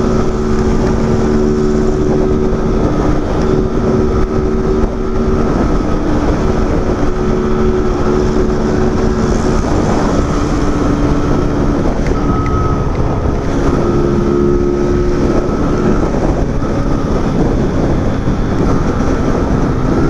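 Motorcycle engine running at highway speed, its note holding steady and then shifting pitch a few times with the throttle, under heavy wind rushing over the microphone.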